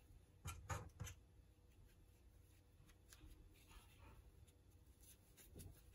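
Near silence with faint handling sounds of crocheting: a crochet hook working yarn, with a few soft clicks in the first second and light rustles later.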